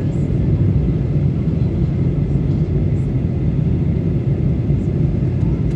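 Steady low cabin rumble of a Boeing 737-900 in flight, its CFM56-7B turbofan engines and rushing airflow heard from inside the passenger cabin.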